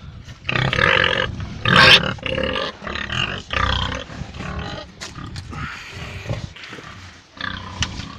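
A group of large feeder pigs in a wooden pen grunting and giving loud, noisy calls, loudest about two seconds in, then quieter grunts.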